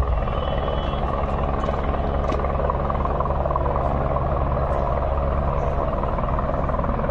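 Helicopter running steadily, a continuous low drone with a hum underneath.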